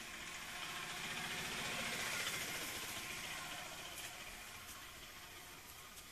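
A motor vehicle's engine passing by, its sound swelling to a peak about two seconds in and then fading away.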